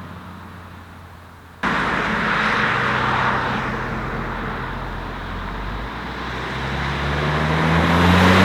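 Audi TT MK2 with a Milltek cat-back exhaust driving on the road: the exhaust note fades for the first second and a half. After an abrupt cut, it returns with loud road and tyre noise, and the engine note climbs in pitch near the end as the car accelerates.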